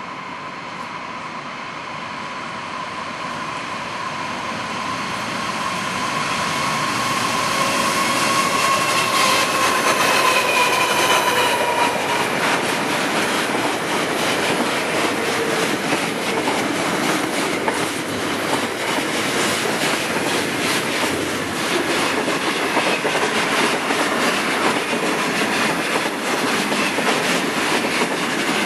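Train approaching and passing close by, its wheels clattering over rail joints. The sound builds over the first ten seconds, a thin tone drops in pitch about eleven seconds in, and a steady run of wheel clicks continues after.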